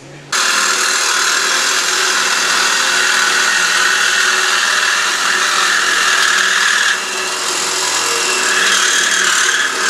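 Handheld power cutting tool running steadily as it cuts through the steel exhaust H-pipe. It starts about a third of a second in and dips briefly about seven seconds in.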